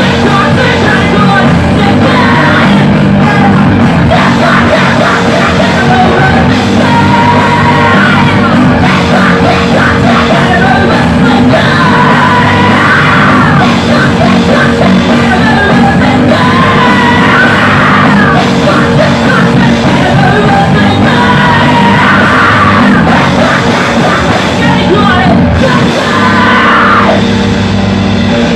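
A live rock band playing loud and rough-sounding, with a singer yelling the vocal in repeated phrases over electric guitar and drums. The playing thins out slightly near the end.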